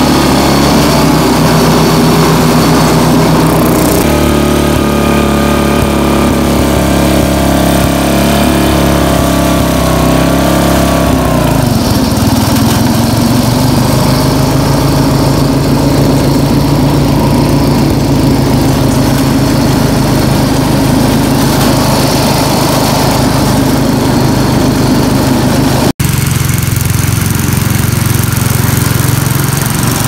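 Small engine of a 1972 Snapper Comet 26 riding mower running steadily. About four seconds in a whistling whine joins it and wavers in pitch until about twelve seconds in, when the engine note changes: the whistling-grinding the owner heard from the blade spindle before it was greased. The sound cuts abruptly near the end to the engine running with a different note.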